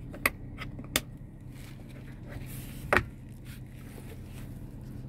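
Two light plastic clicks from the cover of a car's centre-console 12-volt power outlet, then about three seconds in a louder knock as the padded armrest lid of the console storage box is shut. A steady low hum runs underneath.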